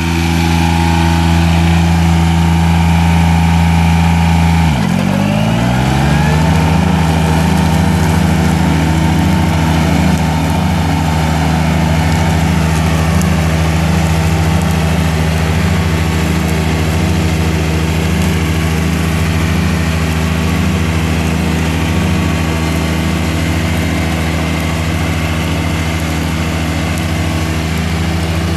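Yanmar three-cylinder diesel engine of a 1999 John Deere 455 lawn mower running steadily. About five seconds in, its speed drops sharply and climbs back within about a second.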